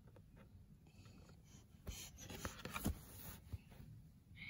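Faint rustling and a few soft knocks of a picture book's page being turned and the book handled, busiest about two to three seconds in.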